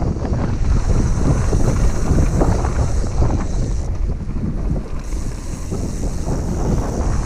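Mountain bike descending a dry dirt trail: wind buffeting the microphone over a steady rumble of tyres on the ground, with frequent knocks and rattles from the bike over bumps. It eases briefly about two-thirds of the way through.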